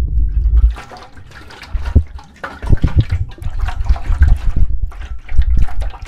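Lake water splashing and sloshing right at a camera held at the water's surface, with a string of sharp splashes and a heavy low rumble. The sound is muffled for the first moment, then opens up.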